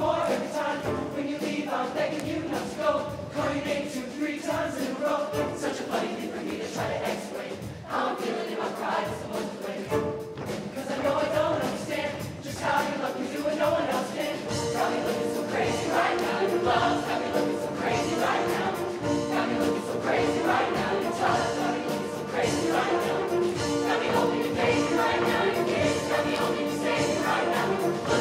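SATB show choir singing with a live band, a full choral sound over drums and instruments. The music grows fuller and louder about halfway through.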